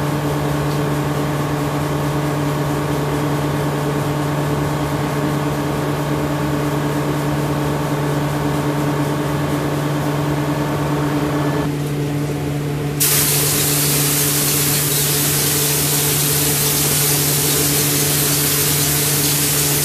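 Steady machine hum with several steady tones. About thirteen seconds in, the loud continuous hiss of a compressed-air spray gun starts and keeps going.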